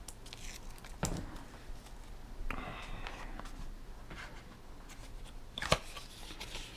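Handling of a black cardboard box and its insert: faint rustling, a short scraping slide about two and a half seconds in, and a few sharp clicks, the loudest about a second in and near the end.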